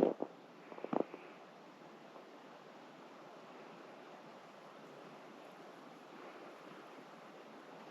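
A few crunching footsteps on frozen, crusty snow in the first second, then the steps stop, leaving only a faint, steady outdoor hiss.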